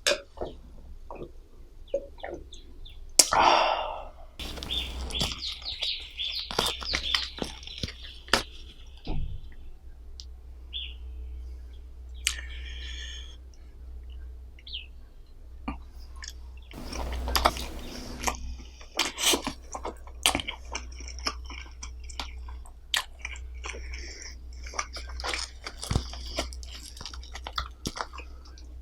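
A person chewing food close to the microphone, with wet mouth sounds and many brief crunches and clicks.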